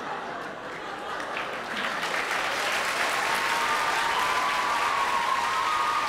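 Audience applause that swells over the first two seconds and holds, with a few voices cheering over it in the second half.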